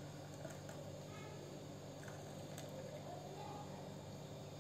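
Hot milk poured from a steel pan into a glass tumbler, a faint trickle over a steady low hum.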